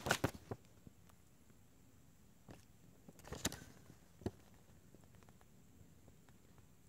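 Paper user's manual being handled and unfolded: a few short rustles and ticks at the start, a louder rustle a little over three seconds in and a single tick soon after, with faint room noise between.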